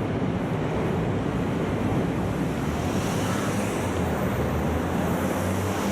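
Steady roar of passing vehicles at a road-and-rail level crossing, an even rumbling noise with a low hum and no break.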